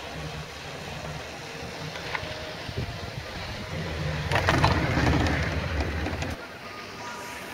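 Chairlift running: a steady low rumble that swells with a quick clatter about four and a half seconds in as the chair rolls past a lift tower's sheave wheels, then drops off suddenly about six seconds in.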